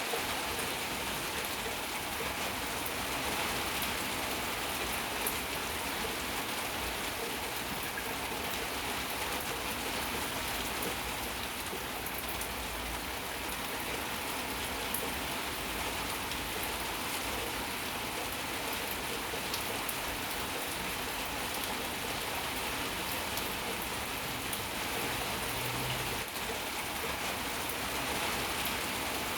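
Steady rain falling, with a constant hiss and scattered drops ticking on surfaces.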